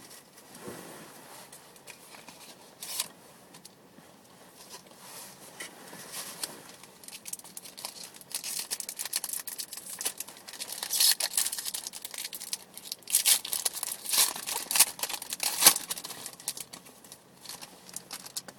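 Trading card box packaging being torn open and crinkled by hand, a crackling rustle that starts sparse and grows busier and louder through the second half.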